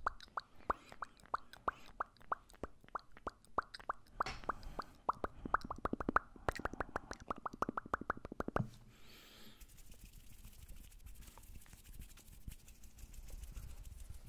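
Close-miked ASMR hand sounds: a quick run of short, hollow plopping pops, three or four a second and faster for a stretch. They stop abruptly about nine seconds in, and after that there is only a faint, soft rustle.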